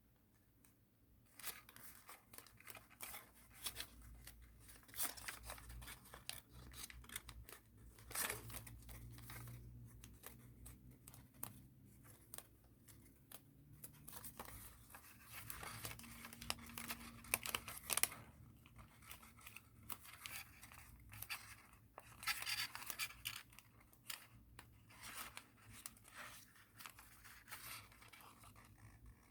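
Origami paper being folded and creased by hand: irregular crinkling and rustling, starting about a second and a half in.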